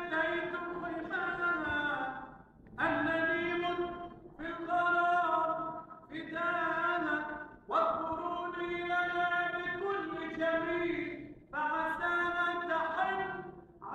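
A male singer's amplified voice singing Arabic tarab in long held phrases a couple of seconds each, with short breaks between them.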